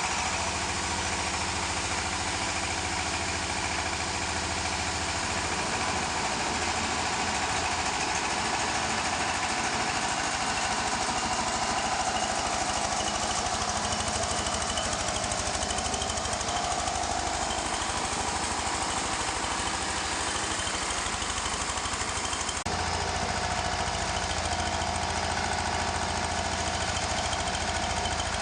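Wood shredder that grinds wood into sawdust, running steadily with a loud, continuous mechanical drone. The sound shifts abruptly about 22 seconds in, at a cut.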